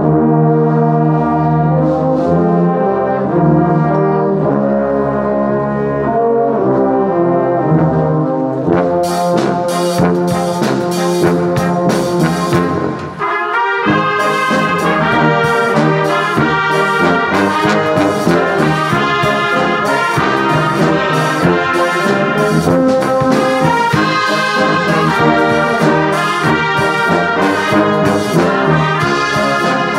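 A brass band playing a hymn arrangement, sustained brass chords at first. About nine seconds in, sharp rhythmic strokes start up, and after a brief dip near halfway the flutes join and the full band plays on.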